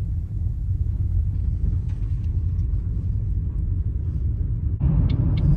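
Steady low rumble inside a broken-down car's cabin. About five seconds in it gives way to louder road noise as the car is towed on a tow bar.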